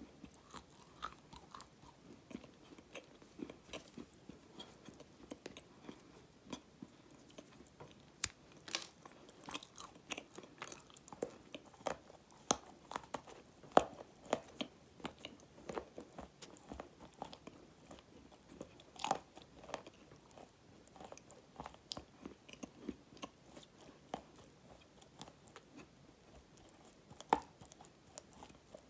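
Close-up chewing and crunching of bites from a dry, crumbly dark grey chunk, with a sharp crunch every few moments; the loudest come about halfway, a little after, and near the end.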